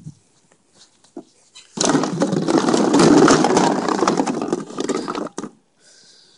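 Plastic bottles in a plastic kiddie pool clattering and crinkling as a Belgian Malinois puppy rummages through them: a dense rattle that starts about two seconds in and stops about five seconds in.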